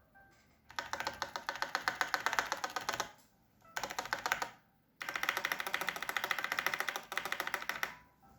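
Fast typing on a Keychron C1 mechanical keyboard with Gateron Baby Kangaroo tactile switches and NicePBT PBT keycaps, its case modded with case foam, PE foam and two layers of tempest tape. Three runs of rapid keystrokes, the first and last about three seconds long and a shorter one between, with brief pauses.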